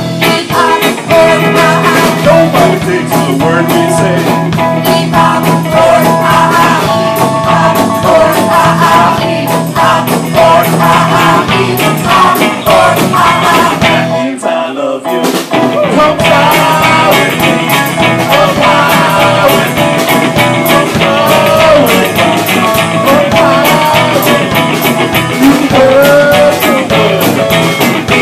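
A live rock band playing, with electric guitar and djembe hand drum under a vocalist singing into a microphone. The bass drops out for a short break about halfway through.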